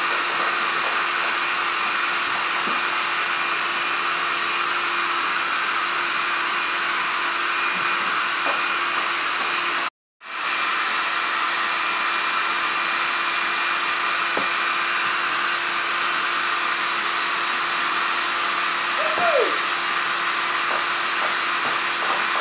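Handheld hair dryer running at a steady speed, blowing a loud, even rush of air over a constant motor hum. The sound cuts out abruptly about ten seconds in and comes straight back.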